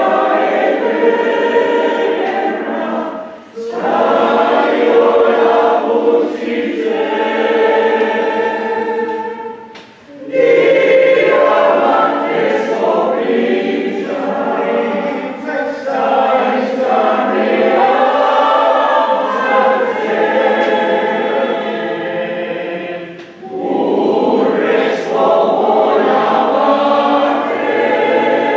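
Mixed choir of men's and women's voices singing a cappella, in sustained chords with short breaks between phrases about three and a half, ten and twenty-three seconds in.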